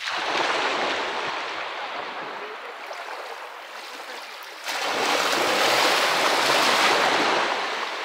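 Small Baltic Sea waves breaking and washing up a pebble shore. There are two surges of surf. The second comes in suddenly a little past halfway and is the louder.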